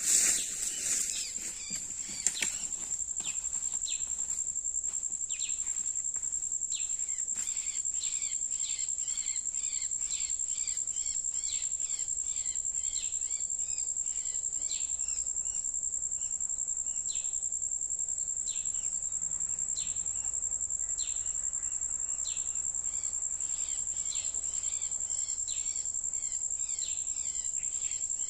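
A steady, high-pitched insect drone runs throughout, with short songbird chirps repeating every second or so. A few knocks and rustles come in the first couple of seconds.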